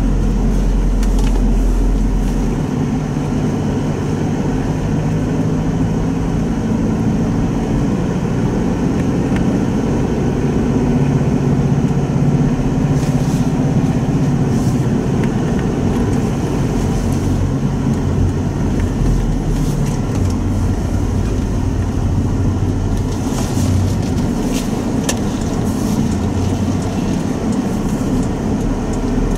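Mitsubishi Pajero Sport's 2.5-litre four-cylinder turbodiesel running steadily while driving on a snow-covered road, heard from inside the cabin.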